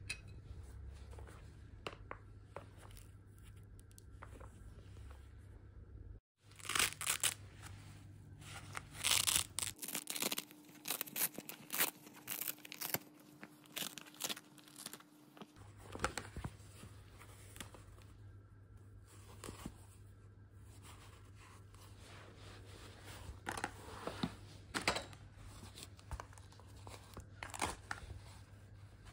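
Microfibre pads being handled and ripped off the hook-and-loop strips of a spray mop head. The rasping tears come in bursts, the loudest about ten seconds in and again near the end.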